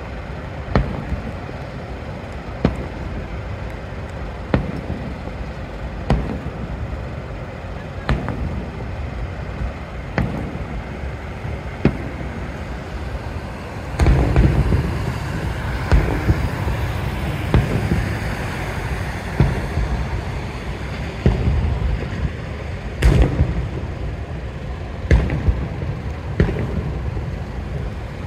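Fireworks bursting in the distance: sharp bangs every second or two over a steady low rumble. From about halfway through the bangs come thicker and louder.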